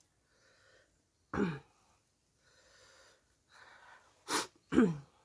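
A woman's breath sounds while eating: faint breathing, a short falling "hah" about a second and a half in, then a sharp hiss of breath a little after four seconds followed at once by another falling "hah".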